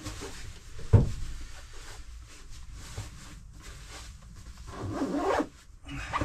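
Fabric rustling and rubbing as a bag is handled, with a single thump about a second in and a louder stretch of rustling around five seconds in.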